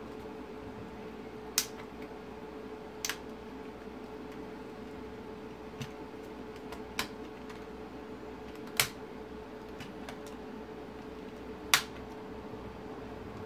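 Sharp little clicks and snaps, about six spread out with the loudest near the end, as a new gauge pointer (stepper) motor is pressed and seated onto the circuit board of an Audi TT instrument cluster. A steady low hum runs underneath.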